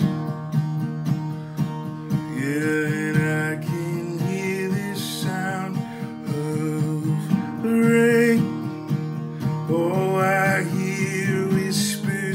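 Strummed acoustic guitar accompanying a man's voice singing long held, wavering notes in a slow worship song.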